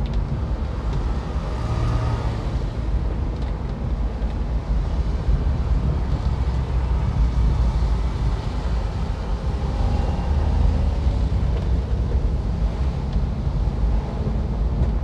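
A car driving on a rain-wet street, heard from inside the cabin: a steady low rumble of engine and road noise.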